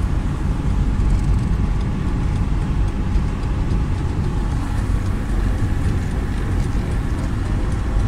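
Steady road and engine noise inside the cabin of a 2006 Chevrolet Niva driving along the highway, an even low rumble with no break.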